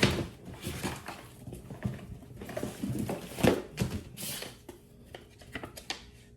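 Sheets of sandpaper being sorted and handled on a workbench: irregular rustles and light knocks and taps.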